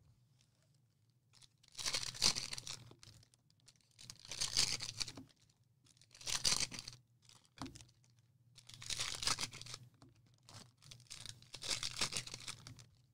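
Plastic trading card pack wrappers being torn open and crinkled, in about six separate bursts of ripping over several seconds.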